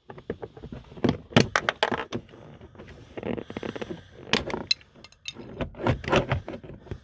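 Plastic seat trim being worked loose and handled: a run of clicks, knocks and scrapes, with sharper cracks about a second in, around four and a half seconds, and again around six seconds.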